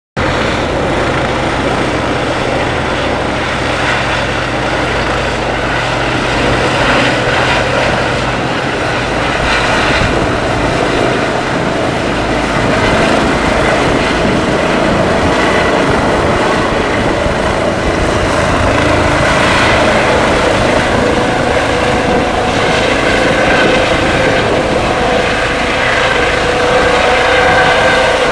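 Eurocopter EC135 helicopter's turbines and rotors running close by: a loud, steady rushing drone with a whine in it, growing a little louder over the second half.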